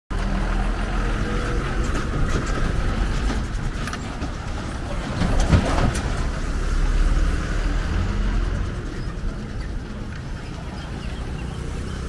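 Diesel engines of Ashok Leyland lorries running in a low, steady rumble, with a brief louder surge about five and a half seconds in.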